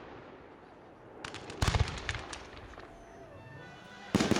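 Aerial fireworks shells bursting: a cluster of sharp, rapid bangs about a second and a half in, then a quieter fading tail, and another loud burst near the end.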